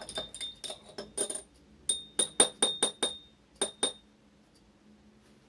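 Utensil clinking against the side of a ringing bowl while glue and borax water are stirred together for slime: a quick run of sharp clinks, then a handful of louder ones, stopping about four seconds in.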